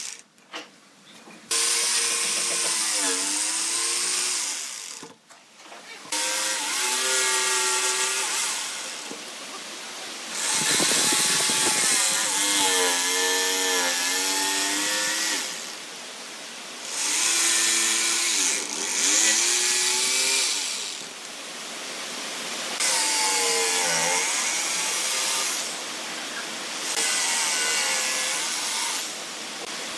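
Electric jigsaw cutting a curved petal outline in a clamped wooden board. The motor's pitch sags and recovers as the blade works through the curves, with short breaks near the start and about five seconds in.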